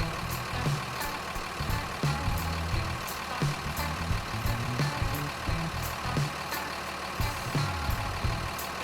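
A truck or vehicle engine sound running steadily, mixed with background music that has a steady beat.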